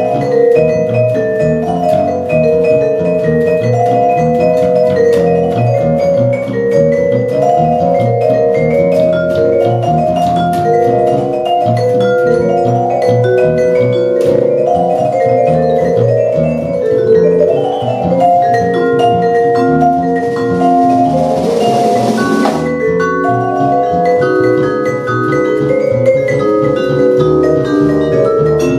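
Small jazz group playing live, led by a vibraphone playing quick runs of mallet notes over accordion, double bass and drums. About two-thirds of the way in, a short rushing swell rises and cuts off suddenly.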